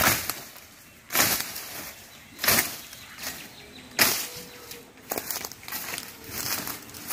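Long-handled billhook, a blade on a metal pipe, swung into brush and weeds, chopping and swishing through stems and leaves in repeated strokes, about one every second or so, with rustling between them.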